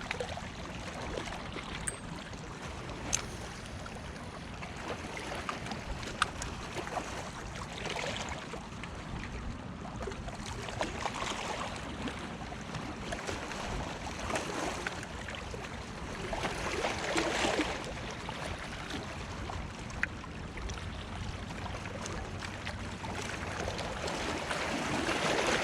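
Choppy lake water washing against a rocky shore, swelling and easing every few seconds, with a few sharp clicks.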